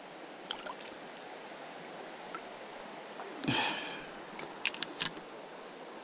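Steady rush of creek water, with a small hooked panfish being pulled from the water and handled: a brief louder sound a little past halfway and a few sharp clicks near the end.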